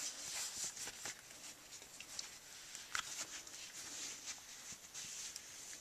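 A microfiber cloth wiping the screen and body of an iPod touch: faint rubbing and swishing, with scattered light clicks from fingers and the device.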